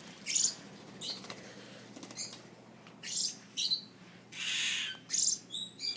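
Baby iris lorikeets giving a series of short, raspy, hissing screeches, with one longer screech about four and a half seconds in.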